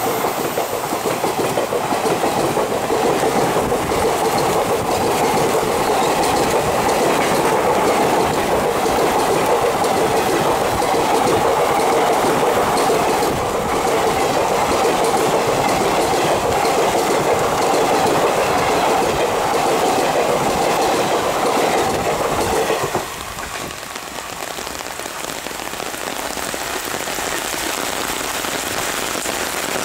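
Passenger express coaches passing at speed, wheels clattering over the rail joints with a steady rushing noise. About 23 seconds in, the train noise drops away suddenly, leaving the even hiss of heavy rain.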